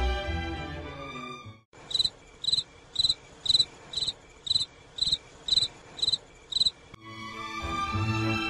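Background music cuts out and a cricket-chirping sound effect plays: about ten short, evenly spaced chirps, two a second. This is the stock cue for an awkward silence. The music comes back near the end.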